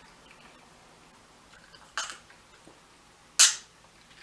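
Two sharp, crisp crunches close to the microphone: bites into crispy french fries. The second comes about a second and a half after the first and is much louder.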